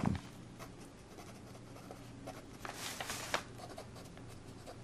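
Felt-tip pen writing block letters on a sheet of paper: faint, short scratchy strokes of the tip on the paper, with a brisker run of strokes about three seconds in.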